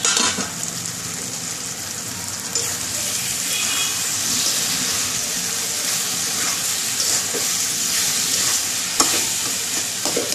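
Green jackfruit and shrimp curry sizzling in a wok on a gas flame while a spatula stirs and scrapes through it, the dish nearly cooked. There is one sharp knock of the spatula against the pan about nine seconds in.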